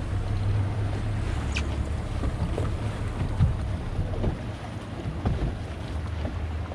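Fishing boat's engine running steadily at low speed, with wind buffeting the microphone and water noise around the hull.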